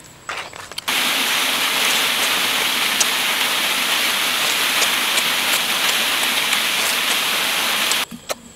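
Waterfall pouring down onto rock and a person beneath it: a steady, loud rush of water that cuts in about a second in and stops abruptly near the end.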